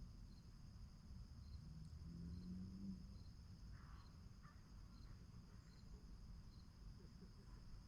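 Faint woodland ambience: a steady high-pitched insect trill with a soft chirp repeating about once a second, over a low rumble. A brief low hum comes a little over two seconds in.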